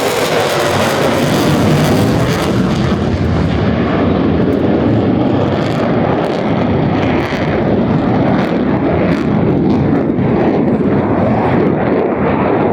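Airplane flying overhead, a loud, steady engine noise whose high hiss fades after about the first three seconds as the aircraft moves on.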